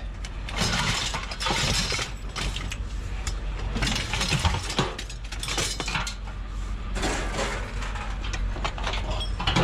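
Scrap metal clanking and scraping as tangled pieces are pulled and shifted by hand, in irregular knocks and rattles over a steady low hum.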